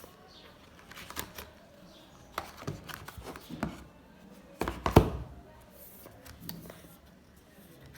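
A smartphone's retail box and packaging being handled and opened: scattered clicks, scrapes and rustles of cardboard and plastic, with a louder knock about five seconds in.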